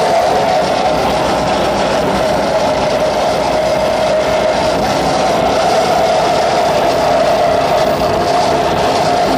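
Loud live amplified noise drone: a dense, unbroken wall of distorted sound with one strong held tone through the middle, without beat or vocals.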